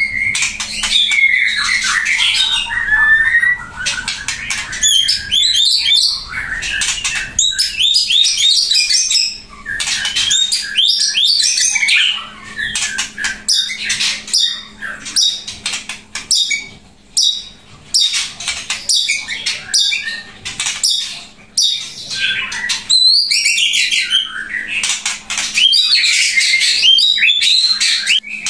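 White-rumped shama (murai batu) singing loudly in phrase after phrase of rapid sweeping whistles and sharp clicking notes, each burst separated by a short pause.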